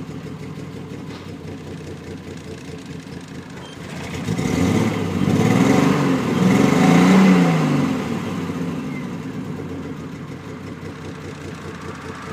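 Triumph TR6's straight-six engine running with a misfire, idling and then revved up twice, about four and six seconds in, before dropping back to idle.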